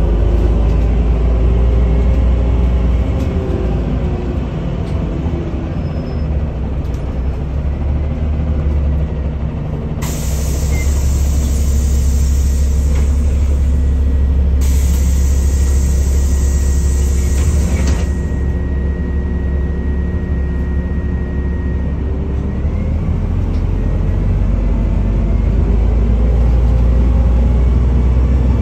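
Inside a moving NefAZ-5299 city bus: steady low engine and road rumble, the engine's pitch shifting as the bus changes speed. About a third of the way in, a loud hiss starts and stops sharply twice and lasts about eight seconds.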